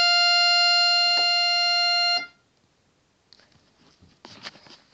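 Everest electronic keyboard holding one steady, buzzy synth note that stops abruptly about two seconds in, followed by a few faint scratchy handling noises.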